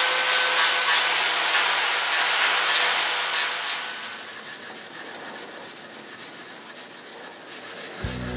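Angle grinder fitted with a plastic paint-removal fleece disc, running with a steady motor whine and scrubbing paint off a motorcycle fork leg in rhythmic strokes. It stops about four seconds in, and softer rubbing of hand sanding with 400-grit paper follows.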